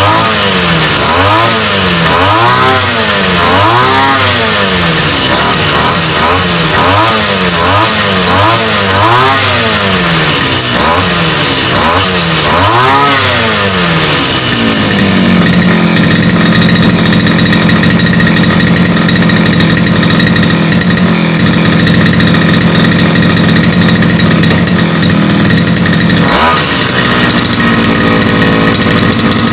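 Small grass-trimmer engine driving a propeller through a flexible shaft, revved up and down about once a second, then held at a steady high speed, dropping to a lower speed near the end.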